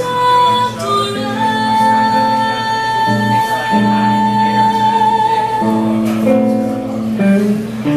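A female jazz singer singing with guitar accompaniment. She holds one long note through the middle over sustained guitar chords.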